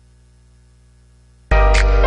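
A low hum for about a second and a half. Then a loud electronic musical sound with many pitches sounding together starts abruptly, with a brief high sweep a moment later.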